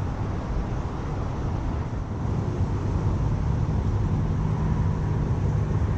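Steady low rumble of a running engine, its hum growing stronger about halfway through.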